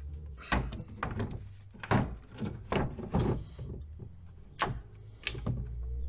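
A string of about ten irregular knocks and thuds from handling: the camera and a cordless work light being moved about and set down.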